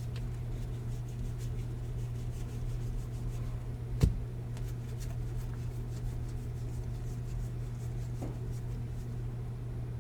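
Trading cards being handled and flipped through, with faint rubbing and one sharp tap about four seconds in, over a steady low hum.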